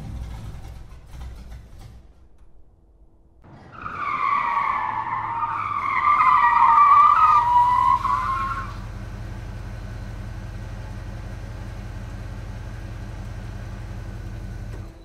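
Car sound effects: an engine rumble dies away, then tyres squeal in a long wavering screech for about five seconds, loudest near its end. A steady low engine drone follows and then cuts off abruptly.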